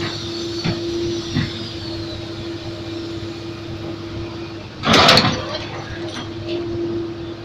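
Heavy diesel machinery running steadily during the loading of a Komatsu PC200 excavator onto a truck, with a constant hum. A couple of light knocks come early and a loud, harsh half-second burst comes about five seconds in.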